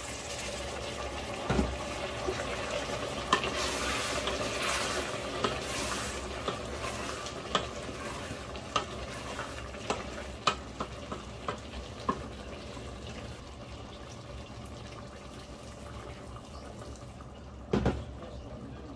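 Hot water from an electric kettle pouring into a steel pot of stew, then cooking noises from the pot: a steady hiss with many light taps and clicks of a wooden spoon against the steel. One louder knock comes near the end.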